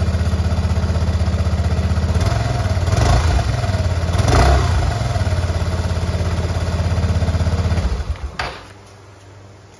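Suzuki Burgman 200 scooter's single-cylinder four-stroke engine idling on its first run after an oil change, blipped twice a few seconds in, then switched off about eight seconds in, followed by a single click.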